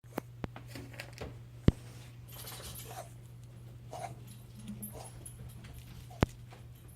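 A dog's cough: short hacking bursts over a steady low hum, with a few sharp clicks, the loudest about a second and a half and six seconds in.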